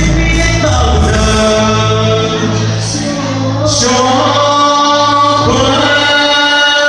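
A man and a woman singing a Vietnamese love-song duet into microphones over a backing track, holding long notes in the second half.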